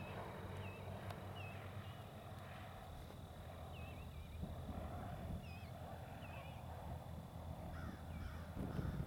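Distant drone of a Cessna 150's four-cylinder Continental O-200 engine as the plane comes in to land, steady and low. Small birds chirp repeatedly over it in short wavering notes.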